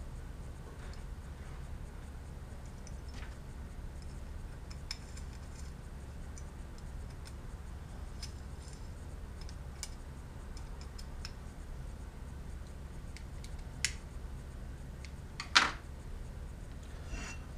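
Light clicks and scrapes of small button head screws being driven with a hex key into a black metal plate, over a steady low hum. Near the end a sharper click and then the loudest knock, as the hex key is set down on the table.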